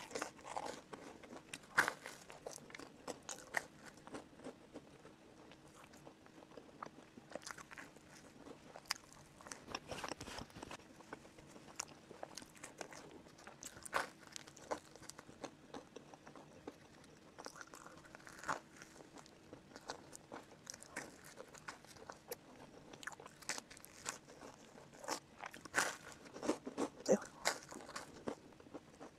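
Close-miked biting and chewing of whole-wheat bread slices spread with jam and peanut butter: an irregular string of short crisp clicks and crunches, busiest near the end.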